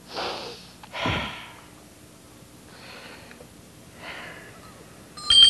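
A sleeping puppet character breathes noisily in comic snoring, four slow breaths in and out. Near the end a bell starts ringing, much louder than the snoring.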